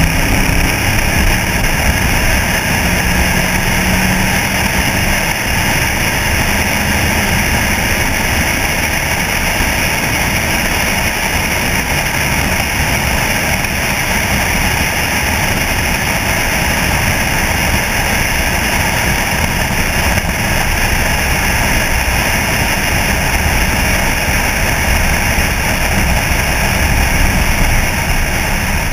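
1964 Chevrolet C-10 pickup driving at a steady cruising speed, its engine and tyre noise heard through heavy, steady wind rush over a camera mounted on the outside of the cab.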